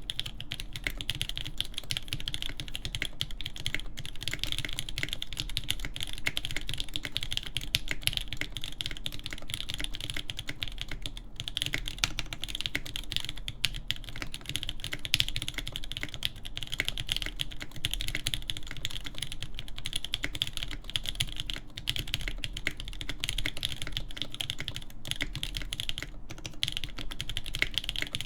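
Continuous fast typing on a custom mechanical keyboard with lubed Durock L7 linear switches, a full POM plate in a polycarbonate case, and GMK keycaps: a dense stream of muted key strikes with a few short pauses.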